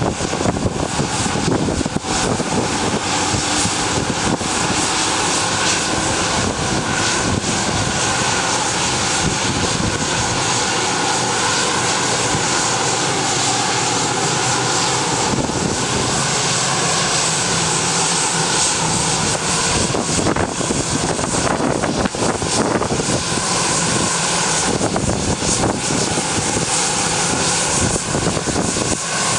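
Bombardier Global Express business jet's rear-mounted Rolls-Royce BR710 turbofans running steadily with the aircraft standing still: a loud, even rush of jet noise with a faint whine on top.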